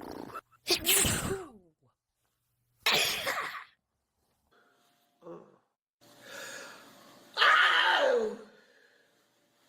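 A run of human sneezes, each a sudden loud burst with a falling voiced tail and dead silence between. The loudest comes near the end, after a softer build-up.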